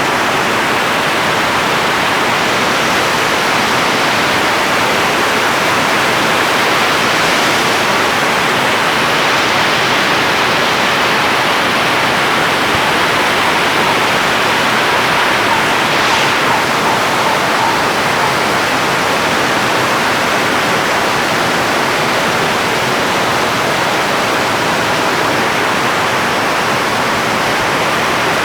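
Steady, heavy rain: a dense, even hiss that does not let up.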